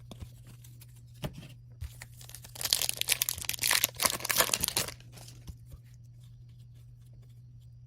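A 2021-22 Upper Deck Extended Series hockey card pack being torn open: a crinkly ripping of the wrapper lasting about two seconds, starting near the middle, after a few light handling clicks. A steady low hum runs underneath.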